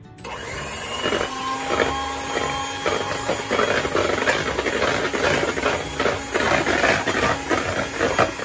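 Breville electric hand mixer switched on at the start, its motor whirring steadily with irregular rattling as the beaters whisk eggs in a plastic bowl.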